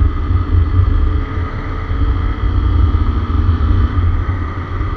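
Honda CRF250 Rally's single-cylinder engine running at road speed while the bike gathers speed, under a heavy low rumble of wind on the microphone.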